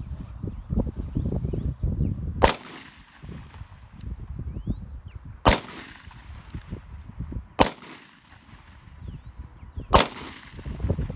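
Four single handgun shots a few seconds apart, each a sharp crack with a short fading ring-out.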